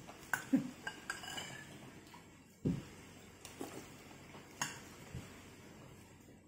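Metal spoon clinking and scraping against a bowl of noodle soup while eating: a few scattered clinks, with a heavier knock near the middle.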